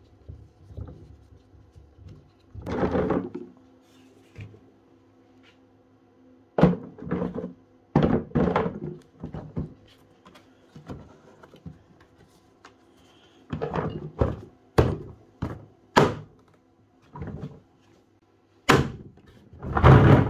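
Hollow plastic knocks and thunks from a wet/dry vacuum's housing and gaskets being pressed in and handled during reassembly: a string of irregular impacts, with a longer knock about three seconds in and the loudest thumps near the end.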